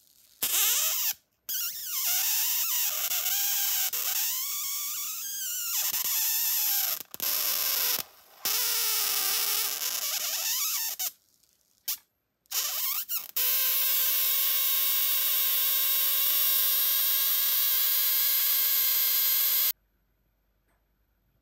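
High-voltage arc from a homemade flyback-transformer generator, drawn between a wire and a fluorescent lamp's pin, buzzing and whining. Its pitch swoops up and down with several breaks, then holds a steady buzzing tone for about six seconds and cuts off suddenly near the end.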